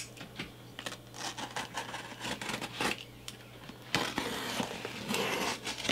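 A handheld blade slitting the packing tape on a cardboard box: a string of small clicks and scratches, then a longer, louder stretch of cutting and scraping along the seam from about four seconds in.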